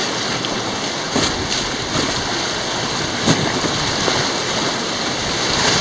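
Whitewater rapids rushing steadily around a raft, with a few short splashes, the loudest about three seconds in.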